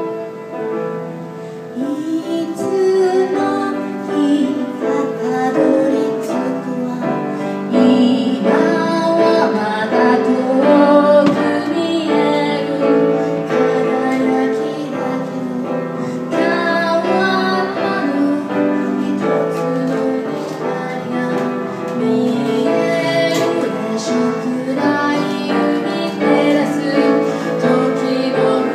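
A woman singing while accompanying herself on a grand piano, a live performance with sustained piano chords and melody under her voice.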